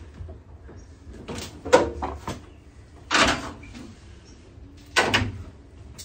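Fox-body Mustang hood being handled: lowered and pressed down over the engine, then lifted back up and set on its prop rod. This gives several separate knocks and clunks, the sharpest about two seconds in.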